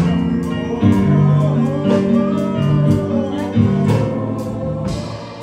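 A man sings a gospel song into a microphone over instrumental accompaniment with a steady beat.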